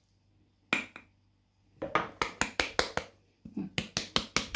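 Glass jar filled with fermented fish-roe mixture being knocked in quick runs of sharp taps, about six a second, to settle and pack the contents tight. A single knock comes about a second in, then two runs of taps follow.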